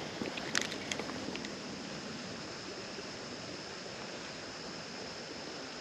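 Creek water running steadily over a shallow riffle, with a few light clicks in the first second or so.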